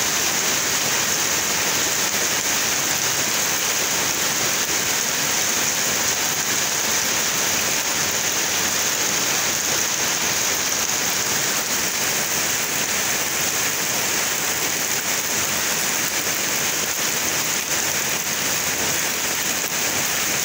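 Heavy rain pouring steadily through trees and foliage, a dense, even hiss with no breaks.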